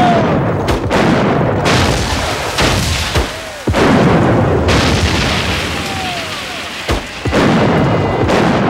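A battery of muzzle-loading field cannons firing one after another: about eight booming shots, roughly a second apart, each trailing a long rumble.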